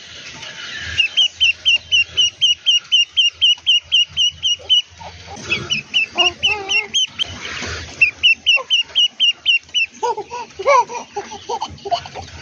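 Duckling peeping: long runs of short high chirps, about five a second, broken by brief pauses. A baby's voice joins in during the last couple of seconds.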